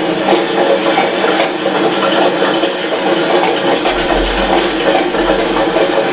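Loaded freight wagons of a long train, mineral hoppers and grain cars, rolling past close by: a steady rumble with wheels clattering and rattling on the rails.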